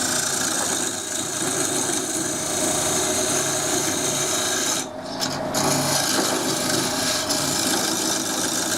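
Skew chisel cutting a spinning green-wood cup blank on a wood lathe, a steady scraping rasp over the running lathe. The cut breaks off briefly about five seconds in as the tool lifts, then resumes.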